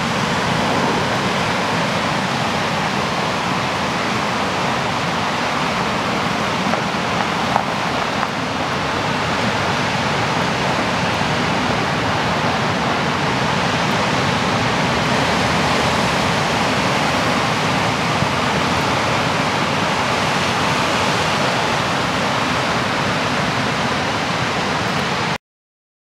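Ocean surf breaking on a sandy beach, a steady rush of waves that cuts off suddenly near the end.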